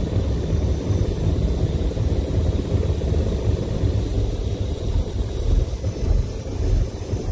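Wind buffeting the microphone: a loud, uneven low rumble that rises and falls without any steady tone.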